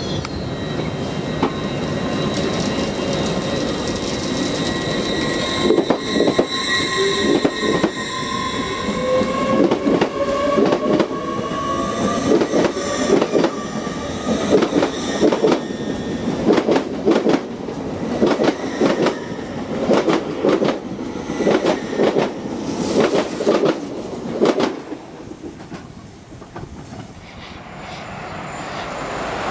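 Hull Trains Class 802 multiple unit pulling away: its traction whine climbs steadily in pitch as it gathers speed, then its wheels clatter rhythmically over rail joints and points as the coaches pass. The clatter dies away about 25 seconds in, and near the end the sound of another train approaching swells.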